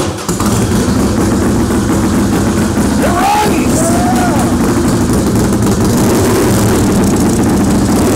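Fuel-injected Harley-Davidson Springer V-twin engine catching just after the start and then running steadily at idle.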